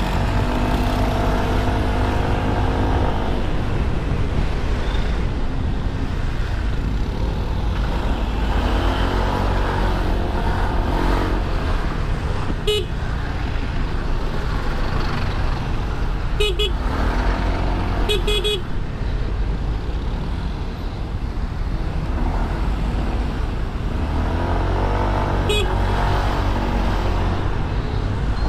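Riding a Honda SH150i single-cylinder scooter in city traffic. A steady low rumble of wind and road noise runs under the scooter's engine note, which rises and falls several times as it speeds up and slows. A few short horn toots sound from the traffic, twice in quick succession about two-thirds of the way in.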